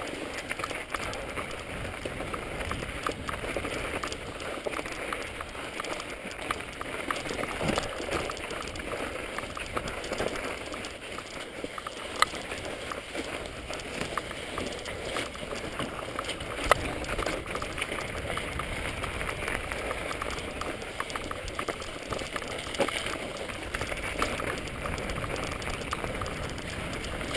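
Mountain bike riding over snow-covered, rocky singletrack: a steady crunching hiss of tyres on snow, with frequent small clicks and rattling knocks from the bike over bumps.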